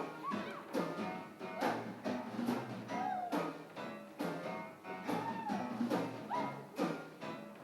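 Show choir performance music: a live band with a drum kit plays a regular beat, a little under one strike a second, under pitched melodic lines that glide up and down.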